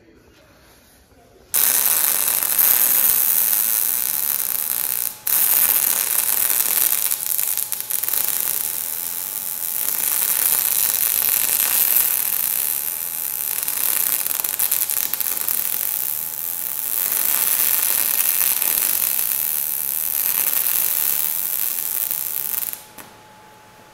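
Electric arc welding on a steel bucket frame, building up weld: the arc runs as a steady hiss, starting about a second and a half in, breaking off briefly around five seconds, then running on until it stops shortly before the end.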